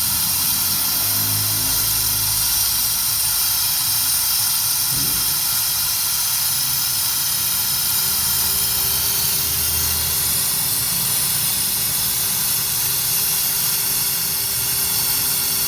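Steady, loud hiss of air-driven equipment used to clean carbon from a Kia Rio engine's combustion chambers, with a low rumble underneath; a faint steady tone joins about halfway through.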